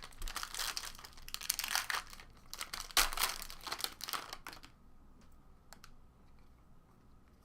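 Plastic trading-card wrapping and sleeves crinkling as they are handled, dense for about four and a half seconds with a sharp snap about three seconds in, then a few faint clicks.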